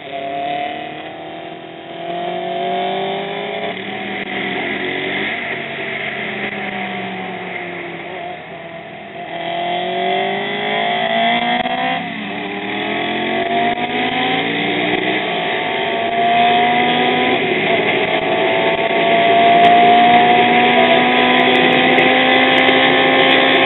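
Racing motorcycle engine accelerating hard through the gears, its pitch climbing and dropping back at each shift, several times over.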